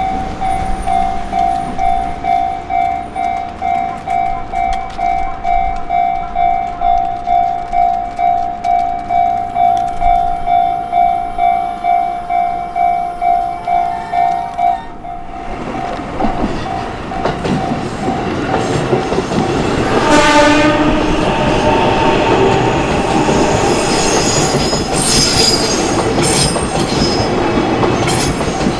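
Japanese level-crossing warning bell ringing, an electronic tone pulsing about twice a second. It fades into the background as a JR train arrives and rumbles across the crossing about 15 seconds in. The train gives a short horn blast about 20 seconds in, and high wheel squeal follows near the end.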